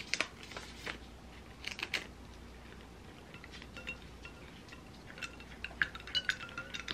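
Brief rustling of a paper tea-bag packet being handled. From about three and a half seconds in, a metal spoon stirs ice cubes in a stemmed glass of water, with many short ringing clinks against the glass.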